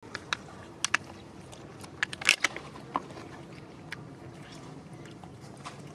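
Infant macaque drinking from a small plastic bag held in a hand: short, irregular clicks and crinkles from its mouth and the plastic, with the loudest cluster a little after two seconds.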